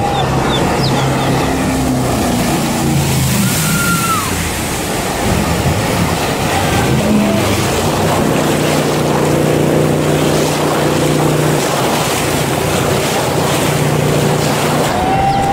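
Jet boat engine running as the boat speeds past and spins out, its drone becoming steady and stronger about halfway through, over a constant rush of river water and wind on the microphone.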